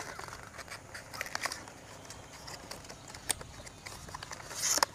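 Cardboard inner packaging of a headphone box being unfolded by hand: scattered light crinkles and taps of card, then a louder scrape of card sliding against card near the end.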